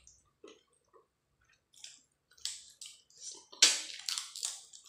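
Eating by hand: soft, scattered squishing sounds as fingers mix rice with dal and fish curry, then louder, wet mouth sounds of biting and chewing a handful of fish curry and rice in the last second or so.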